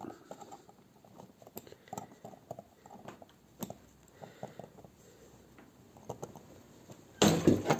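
Faint small clicks and taps of watchmaker's tweezers lifting tiny cogs from the keyless works of a mechanical watch movement. A brief louder rush of noise comes near the end.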